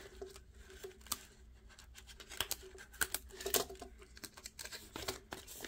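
Clear plastic zip-pouch cash envelopes in a ring binder being flipped through and handled: soft plastic rustling with scattered light clicks.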